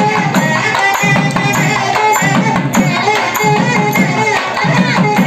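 Live traditional Indian temple music: a barrel drum beaten in a fast, steady rhythm, with jingling percussion and a wavering melody line over it.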